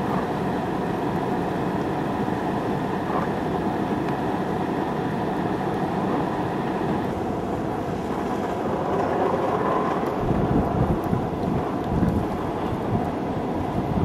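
Blizzard wind blowing across the microphone as a steady rushing noise, with heavier low rumbling gusts from about ten seconds in.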